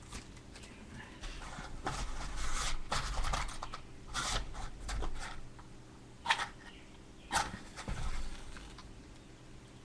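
Rustling and handling noises, with two sharp clicks about six and seven seconds in.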